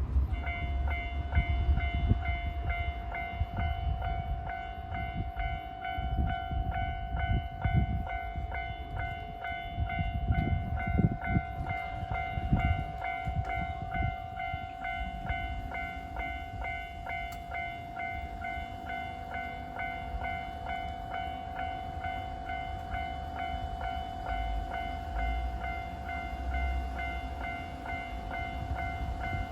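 A Japanese level-crossing warning bell starts ringing just after the start and keeps up its quick, even, repeating electronic clang, signalling that a train is approaching. An uneven low rumble runs underneath, strongest in the first half.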